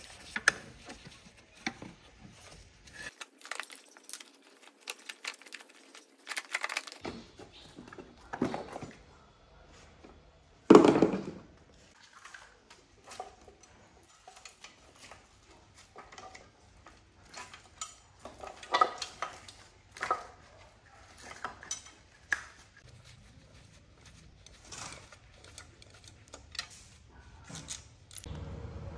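Metal parts and hand tools on a rusty motorcycle clinking, tapping and knocking, with scattered short clinks and scrapes during disassembly; the loudest knock comes about eleven seconds in.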